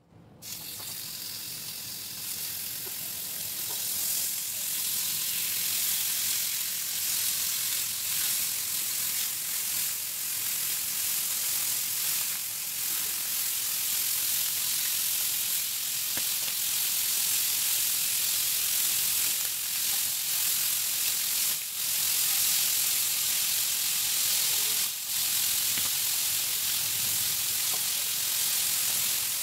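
Pork belly sizzling in a hot ridged grill pan as the pieces are laid in with tongs. The sizzle starts suddenly, grows louder over the first few seconds, then holds steady.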